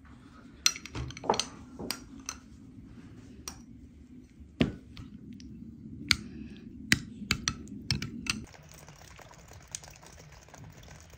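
Irregular light clicks and taps of kitchen utensils against dishes while a sauce is prepared by hand. A low steady hum runs underneath and cuts off about eight and a half seconds in.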